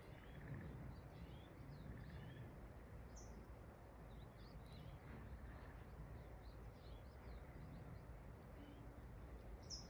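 Faint chirping of small birds over a low steady background noise, with a slightly clearer high call about three seconds in and another near the end.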